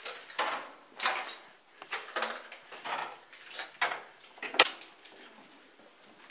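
Footsteps crunching over broken concrete and plaster debris, irregular, about one to two steps a second, with one sharper crack about four and a half seconds in; the steps stop about five seconds in.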